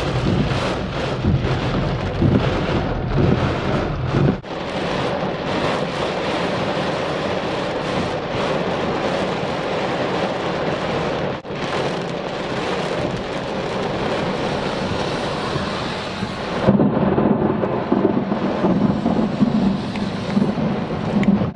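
Heavy rain pounding on a car's roof and windshield, heard from inside the car, with a low steady hum from the car underneath at times.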